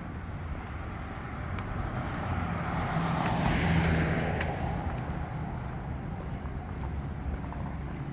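Street traffic rumble with a car passing close by: its engine and tyre noise swell to a peak about three and a half seconds in, then fade away.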